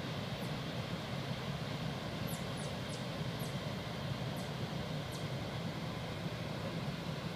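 Steady rushing of water released through Kinzua Dam, a constant low noise that never changes, with a few faint high ticks between two and five seconds in.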